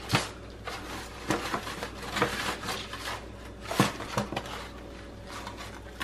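Thin aluminium foil pan crinkling and clicking as whole seasoned red snappers are handled and turned in their marinade, in a handful of short sharp bursts, the loudest a little before the fourth second.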